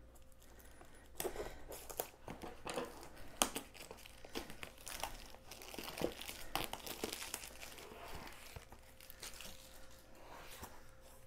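Packaging being opened by hand: irregular crinkling, rustling and tearing, with scattered sharp clicks.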